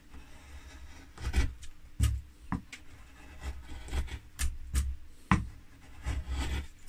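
Half-round carving gouge paring short roughing cuts into linden wood: about a dozen uneven strokes, each a brief scrape with a dull knock.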